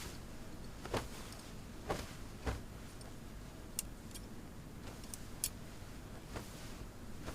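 Scattered light taps and clicks, about seven in all at irregular intervals, over a low steady room hum.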